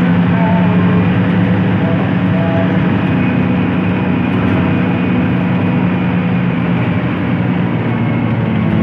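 Intercity bus's diesel engine running steadily under way, a low drone holding one pitch that eases slightly near the end.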